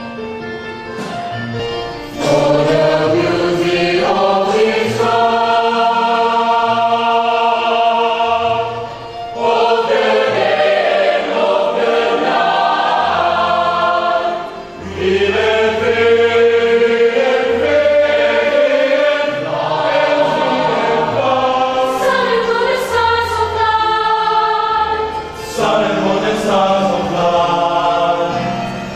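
Student choir singing in harmony, in long sustained phrases with brief breaths between them, about every five to ten seconds.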